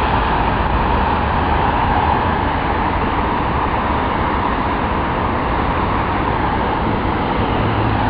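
Steady road traffic noise with a constant low rumble.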